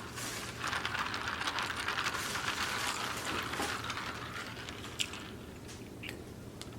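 Eating sounds close to the microphone: dense crackling and clicking from about half a second in until past the middle, then a single sharp click about five seconds in.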